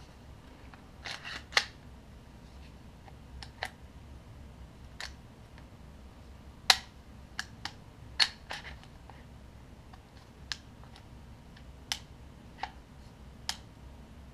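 Scattered short clicks and snaps of an airsoft Glock 17 replica's parts being handled as its slide and recoil spring assembly are fitted back onto the frame. About a dozen clicks, irregularly spaced, with the two sharpest a second and a half apart near the middle.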